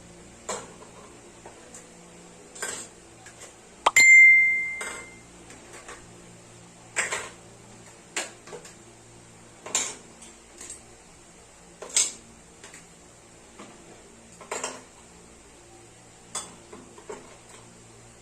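Feeding bottles and their parts being set one by one into a cooking pot used as a sterilizer: about a dozen separate clinks and knocks, the loudest about four seconds in, ringing on briefly.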